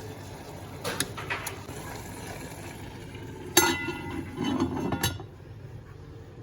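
Kitchen utensils and cookware clinking: a few light clinks about a second in, then a louder clatter lasting about a second and a half past the middle, over a steady background hiss that stops about five seconds in.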